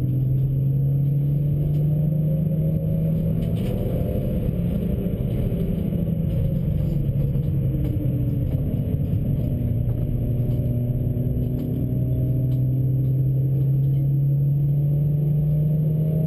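Engine of a stage-2-tuned Suzuki Swift track car, heard from inside the cabin under steady hard driving. The pitch climbs slowly, eases off about four seconds in, and climbs again from about twelve seconds, with light cabin rattles throughout.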